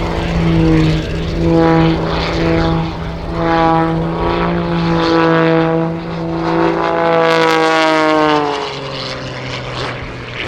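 Wolf Pitts Pro aerobatic biplane's piston engine and propeller droning at high power, swelling and fading in waves. About eight and a half seconds in, the pitch drops and the sound gets quieter.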